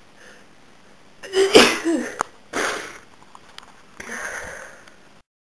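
A woman sneezing with a head cold: a loud sneeze about a second and a half in, a second, shorter burst about a second later, then a quieter breath near the end.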